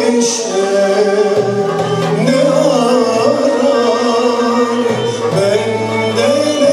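A male solo voice singing a Turkish art music song in the Kürdili Hicazkar makam, accompanied by a small ensemble with violin, cello and kanun.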